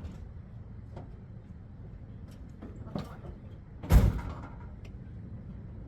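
Low steady rumble of the 1964 Impala SS's V8 idling after new spark plugs and wires, with a few light clicks and one heavy slam about four seconds in.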